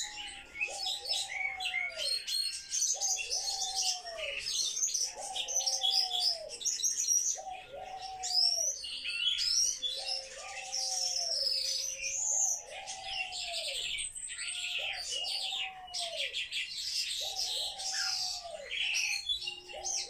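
A room full of small birds chirping and twittering continuously in a busy chorus, with a lower call repeated about once a second beneath it.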